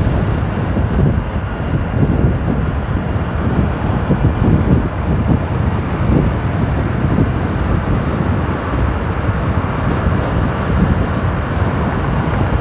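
Wind rushing and buffeting over the microphone of a motorcycle riding at highway speed, with the motorcycle's engine and tyre noise under it.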